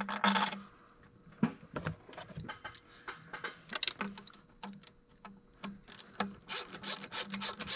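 Hand ratchet clicking in short runs as a bolt is run in on the billet hose adapter, with light metal taps; a fast string of clicks comes near the end.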